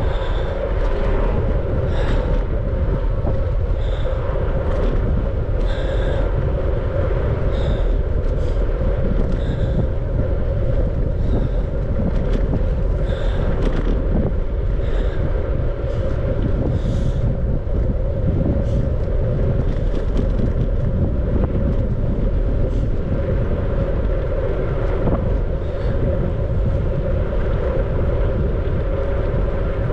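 Riding noise of a bicycle on the move: wind buffeting the microphone over a steady hum from the tyres and frame, with a light tick recurring every second or two.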